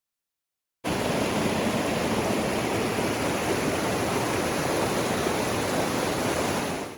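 Steady rush of a mountain river's flowing water, starting abruptly about a second in after dead silence.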